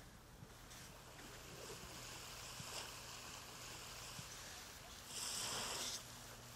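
Faint small sea waves washing on a beach: a steady soft hiss, with one louder wash about five seconds in that lasts about a second.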